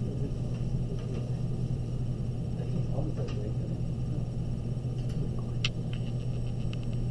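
Steady low hum of room tone, with faint pencil strokes on drawing paper in the first few seconds and a quick run of small ticks near the end.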